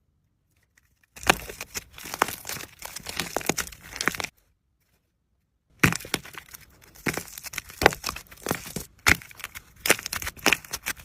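Slime being pressed and squished by hand, giving dense crackling and popping clicks in two stretches with a short silent gap between.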